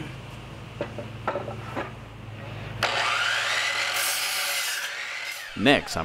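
A few light knocks of a 2x4 board being handled, then about three seconds in a DeWalt compound miter saw starts up with a rising motor whine and its blade cuts through the 2x4; the saw stops shortly before the end.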